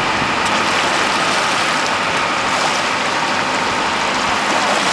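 Steady rushing noise of a boat at sea: its engine running, with water and wind noise over it.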